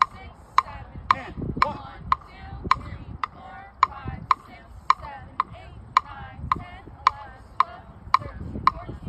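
Metronome clicking steadily, about two beats a second, setting the marching tempo for marching band drill practice.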